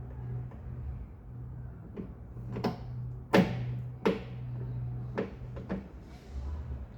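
Sharp metallic knocks and clicks from inside a steel HQ Holden door shell as the door handle's rod clip is worked off, about six in all, the loudest about three and a half seconds in. A steady low hum runs underneath.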